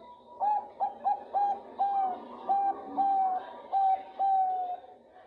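Female zebra dove (Bangkok perkutut) cooing: a run of about nine clear notes, the first few short and quick, the later ones longer and drawn out. It is a female's call to draw a male.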